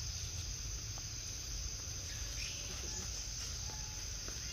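A steady, high-pitched chorus of insects, such as crickets or cicadas, droning without a break, over a low rumble.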